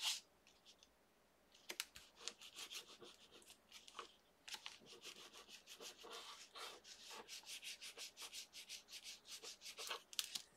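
A plastic burnishing tool rubbed back and forth over a freshly glued paper label to burnish it flat. The faint, quick, scratchy strokes come about three or four a second, starting about a second and a half in, with a short break near four seconds.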